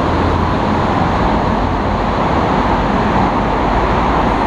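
Steady traffic noise from cars driving through a road tunnel, an unbroken wash of sound with a low rumble underneath.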